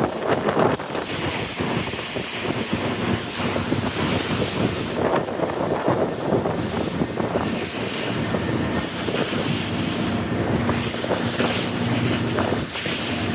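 Strong wind buffeting the microphone over rushing water, with a boat's engine hum underneath from about eight seconds in.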